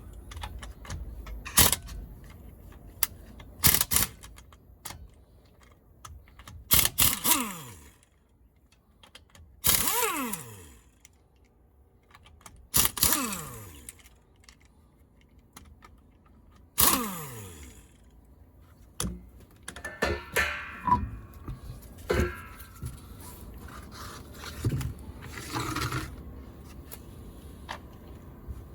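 Car repair work: a power tool runs in short bursts four times, each winding down with a falling whine, amid metal clinks, knocks and clatter of tools and parts.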